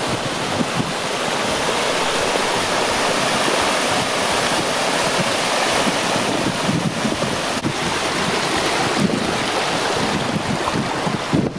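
Small moorland stream cascading over rock steps in a steady, close rush of water, with wind buffeting the microphone.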